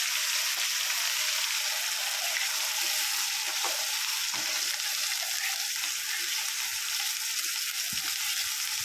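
Hot oil sizzling steadily in a large aluminium kadai as thick tomato-onion gravy is poured into it, with a few light knocks of a spoon scraping the gravy from the bowl near the end.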